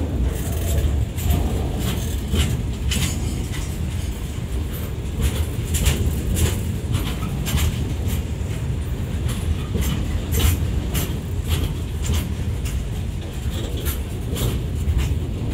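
Loaded freight wagons rolling past close by: a steady low rumble of steel wheels on rail, broken by frequent sharp clacks and clanks of the wheels and couplings.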